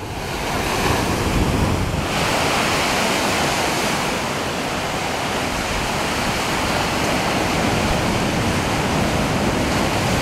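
Ocean surf breaking on the shore: a steady, dense wash of waves that turns hissier about two seconds in.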